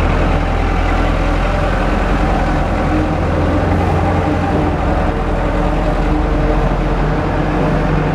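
Diesel engine of a Komatsu PW160 wheeled excavator running steadily, with a strong low drone and no clear revving.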